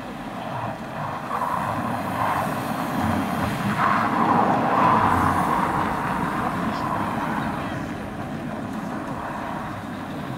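Renault Duster SUV manoeuvring on packed snow, its engine and tyres growing louder as it passes close by about four to five seconds in, then fading.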